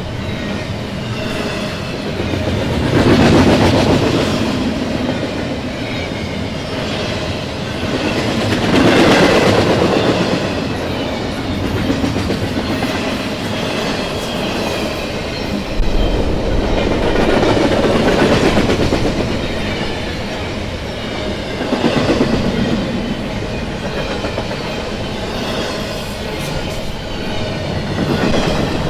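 Freight train cars rolling past on the tracks, wheels clacking over the rail joints, the rumble swelling and easing every few seconds as the cars go by.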